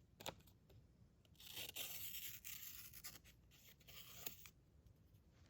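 Faint papery swishes of a freshly sharpened D2-steel knife blade slicing through a sticky note, a paper-cutting test of the edge's sharpness, with a couple of light clicks.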